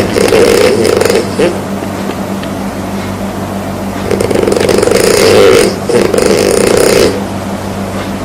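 A person snoring loudly in slow, regular breaths. One snore ends about a second in and the next runs from about four to seven seconds, each in two parts with a brief break between. A faint steady low hum lies underneath.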